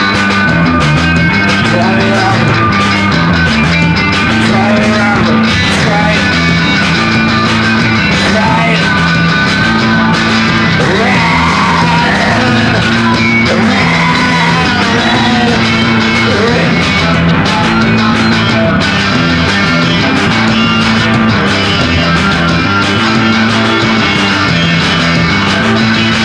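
Loud punk rock song with distorted guitar and a repeating bass riff, with yelled vocals over it.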